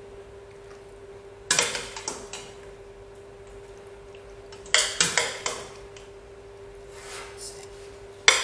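A utensil scraping and clattering against a saucepan and baking dish as pasta mixture is transferred, in short bursts about a second and a half in, around five seconds in and again at the end. A faint steady hum runs underneath.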